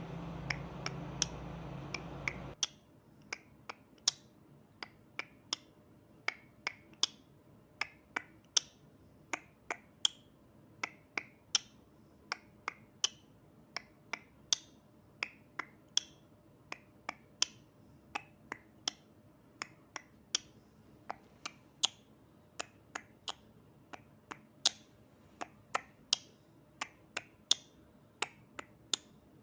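Short sharp clicks at irregular spacing, about two a second, from the stiff copper conductors of a Cat-6 cable being worked by hand as the pairs are straightened and trimmed for an RJ45 plug. A low hum underneath cuts off suddenly about two and a half seconds in.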